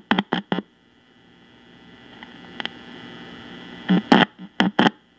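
A Juliette NA-1114 portable radio's speaker, turned all the way up, gives a few short, sharp crackles in two clusters, near the start and again about four seconds in. Between them a low hiss slowly builds.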